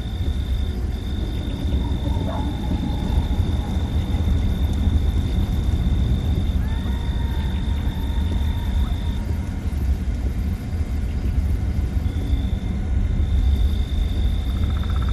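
Steady low road and tyre rumble inside the cabin of a moving Tesla, an electric car, so there is no engine note. A faint steady high tone runs over it.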